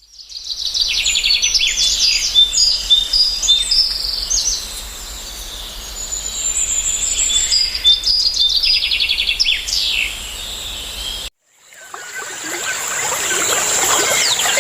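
Birds chirping and trilling in rapid runs over a forest ambience. About eleven seconds in the sound cuts out, and a new ambience fades in, thick with chirps over a steady high tone.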